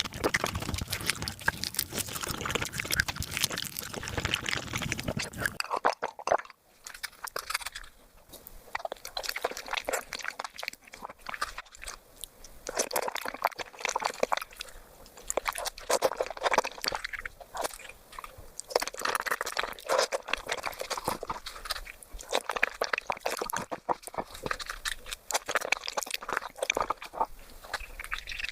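Close-miked eating sounds played back sped up: a rapid, dense run of chewing and crunching. About six seconds in, the sound changes and the low end drops away, as a new clip begins.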